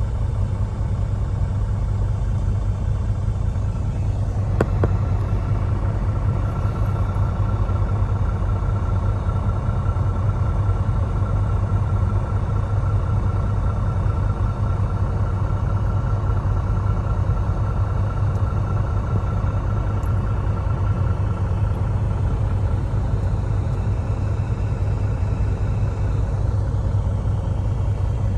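Semi truck's diesel engine running with a steady low rumble heard inside the cab. There is a single click about five seconds in, and after it a faint steady whine that fades out near the end.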